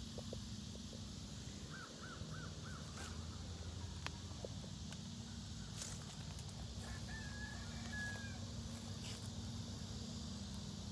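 Faint outdoor ambience with birds calling: a quick run of five short chirps about two seconds in and one longer held note a little past the middle, over a steady low hum and a few light clicks.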